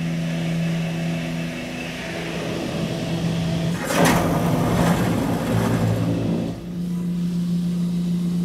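PDQ Tandem soft-touch car wash's rotating brush scrubbing against the car, heard from inside the cabin, over a steady machine hum. About four seconds in, a louder rush of brush-and-water noise lasts roughly three seconds, then the hum carries on alone.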